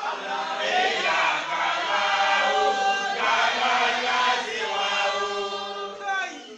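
A group of men chanting together in unison, in drawn-out phrases, the voices falling away near the end.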